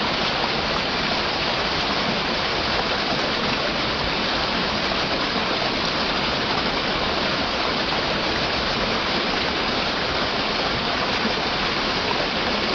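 Waterfall: water falling and rushing in one steady, unbroken wash of sound.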